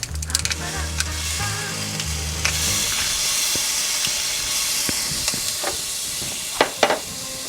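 Minced garlic sizzling in olive oil in a frying pan, the hiss growing louder about two and a half seconds in. A couple of sharp clinks of a utensil against the pan near the end.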